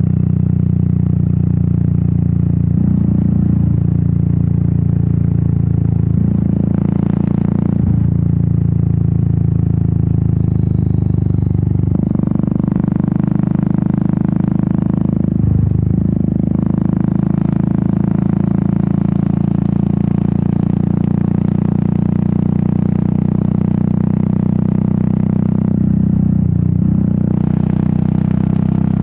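Royal Enfield Meteor 350's single-cylinder engine and exhaust running under way, a steady thumping note whose pitch steps up or down a few times as the throttle changes.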